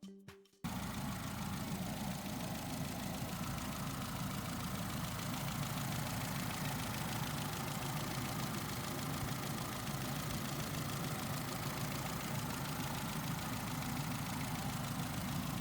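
Peugeot 207's 1.4 engine idling steadily with its new timing belt fitted, cutting in suddenly just after the start.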